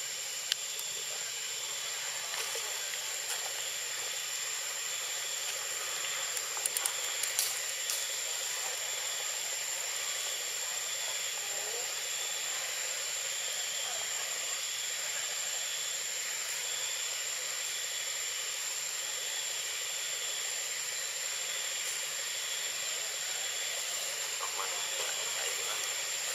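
Steady drone of forest insects: a continuous high-pitched whine over a hiss, with a few faint clicks about seven seconds in.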